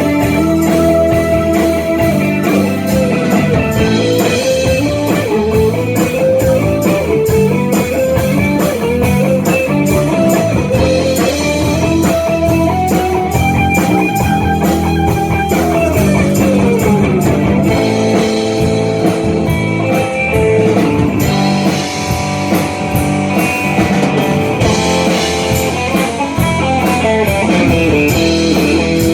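Live rock band playing an instrumental passage: an electric lead guitar line slides up to a long held note about halfway through, then glides back down, over bass and drums.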